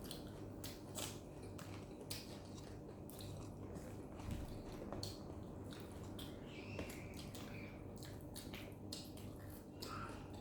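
Close-miked mukbang eating sounds: a person biting and chewing, with many short, irregular wet clicks and crunches.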